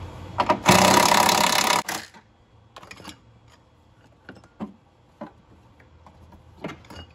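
A handheld cordless power tool spinning a fastener out for about a second, followed by a few light clicks and knocks of plastic engine-cover parts being handled.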